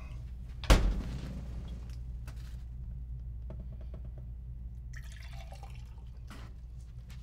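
A sharp knock about a second in, then light clatter and water being poured, over a steady low hum.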